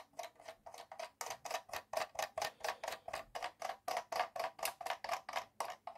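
Small plastic hose reel of a toy fire boat being turned, giving a rapid run of light clicks, about six a second, that stops near the end.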